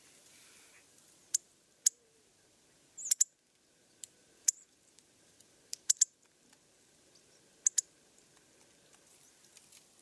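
Sharp, high call notes of small birds at a feeder: about a dozen short ticks, several in quick pairs or threes.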